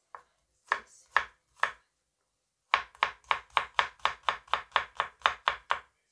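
Knife chopping garlic on a plastic cutting board: a few separate strokes, a short pause, then fast steady chopping at about four strokes a second.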